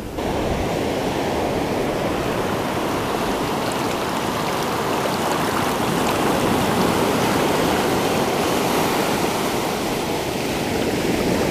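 Ocean surf washing over the beach, a steady rush of water.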